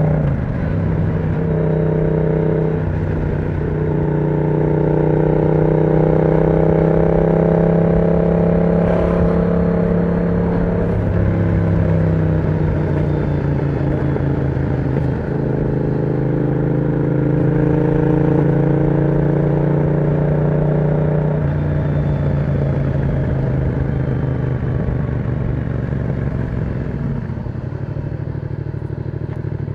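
Yamaha MT-07's parallel-twin engine running through an aftermarket exhaust with the dB killer removed. Its pitch climbs slowly and then falls away sharply about eleven seconds in and again about twenty-one seconds in, as the throttle opens and closes.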